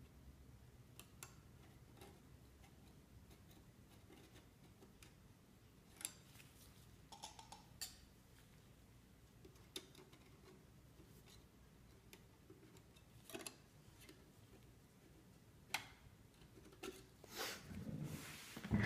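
Mostly near silence, broken by a few sharp, scattered clicks of a metal palette knife against brass marquetry as it is worked under the lifting inlay. Near the end, a louder stretch of rustling and handling noise as the hands move over the box.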